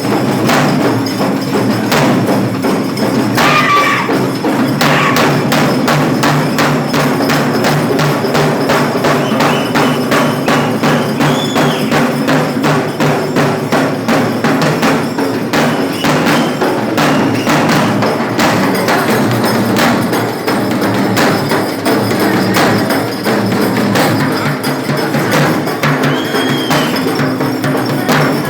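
Drum band playing loud, fast percussion in a dense, driving rhythm, with a few short high tones cutting through.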